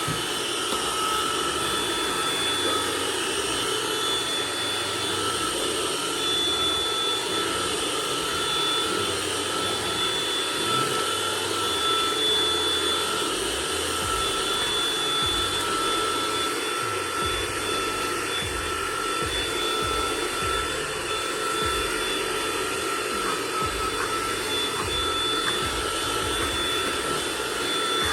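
Hoover ONEPWR cordless stick vacuum running steadily on its hard-floor setting: a rush of airflow with a steady high motor whine in two tones, as the front brush picks up dirt.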